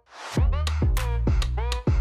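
Electronic backing music starting up after a moment of near silence: a short rising swell, then a steady beat of deep bass hits that slide down in pitch under a bending synth melody.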